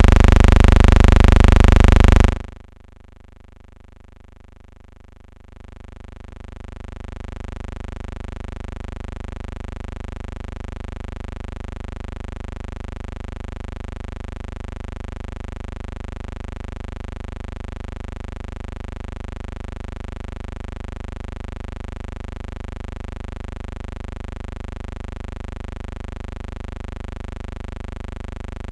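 A loud burst of hiss-like noise cuts off sharply about two seconds in. After a short lull, a steady humming drone with many overtones fades in and holds unchanged.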